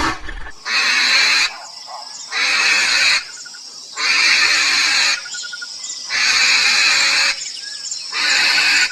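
An animal sound effect: a rasping, noisy call repeated about five times, each burst about a second long with short gaps between.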